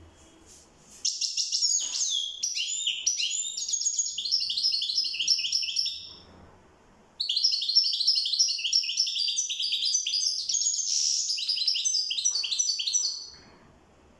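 European goldfinch singing two long phrases of rapid, high twittering notes, about five and six seconds long, with a brief pause between them.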